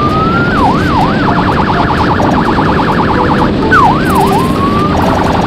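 Police patrol boat's electronic siren cycling through its tones: a rising wail, a couple of quick up-and-down whoops, then a fast warbling yelp, with the sequence repeated. A steady rushing noise runs underneath.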